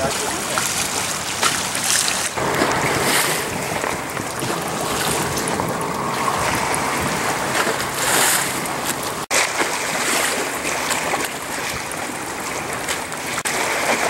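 Wind buffeting the microphone over choppy open water, a steady rushing noise with a brief dropout about nine seconds in.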